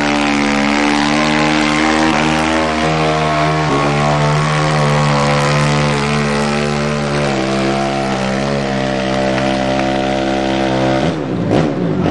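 A sport quad's engine running hard at high revs under load, pulling a weighted pulling sled. Its pitch shifts slightly a couple of times, then the revs drop off sharply about eleven seconds in as the pull ends.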